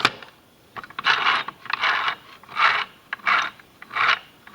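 Toy children's sewing machine's mechanism working, a click and then a regular scraping stroke about every 0.7 s as the needle cycles. It is trying to form a stitch but the hook underneath is not catching the thread.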